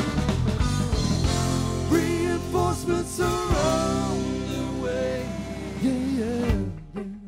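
Live rock band playing electric guitar, electric bass and drums, with bending, sliding lead notes in the middle. The music drops off near the end as the song winds down.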